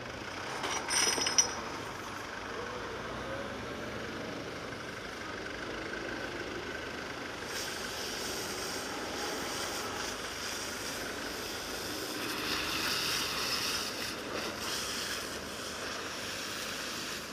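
Forklift engine running steadily as the forklift works, with one sharp metallic clank about a second in.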